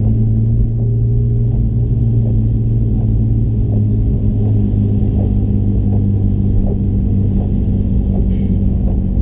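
Porsche car engine idling steadily, with a faint tick repeating about every three quarters of a second; the engine is one with misfires.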